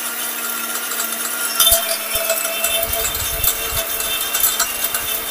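Electric spice grinder machine running steadily on its auto timer, a constant motor tone with a few light clicks; the turmeric load is already ground to powder, so it is running nearly empty.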